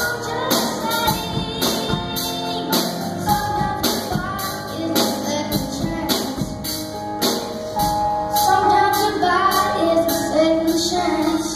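A boy singing a song with a live band behind him, over a steady drum beat. His voice grows stronger over the second half.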